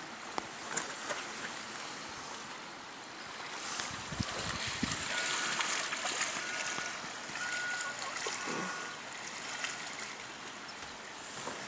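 Flowing river water rushing steadily around a drift boat, with a few small knocks and a brief low rumble about four seconds in.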